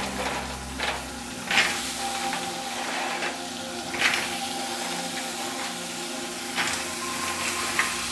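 Mussels sizzling in hot olive oil and garlic in an aluminium frying pan, a steady hiss broken by a few sharp clacks of shells as more mussels are dropped in.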